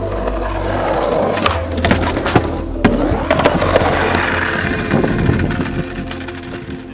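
Skateboard wheels rolling on rough asphalt with a steady low rumble, broken by a few sharp clacks of a board hitting the ground.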